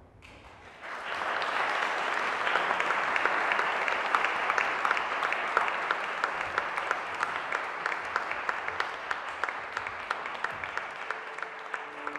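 Audience applauding, starting about a second in and thinning slightly toward the end, with many separate claps heard.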